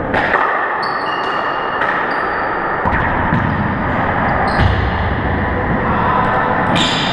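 A rubber handball being struck by hand and smacking off the walls and floor of an indoor four-wall court: about seven sharp, echoing smacks spread through the rally. There are short high squeaks, typical of court shoes on the wooden floor.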